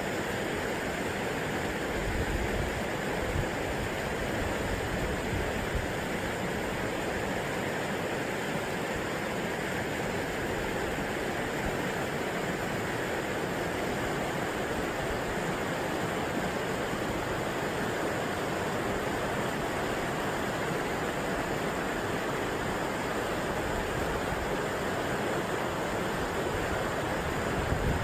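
Shallow river rapids rushing over boulders: a steady, even sound of flowing water.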